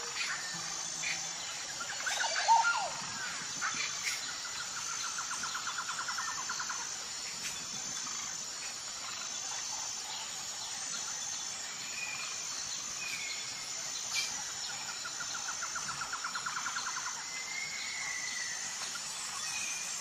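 Steady high insect chorus with a chirp repeating about every second and a half, and wild birds calling over it: a loud call a couple of seconds in, a rapid trill twice, and short chirps.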